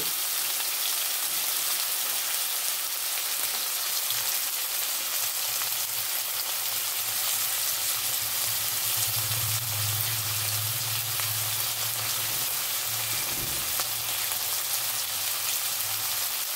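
Potato chunks sizzling steadily as they fry in hot oil in an iron wok.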